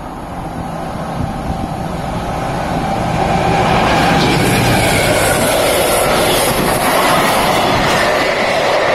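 A train approaching and then passing. The noise grows over the first four seconds and stays loud from then on.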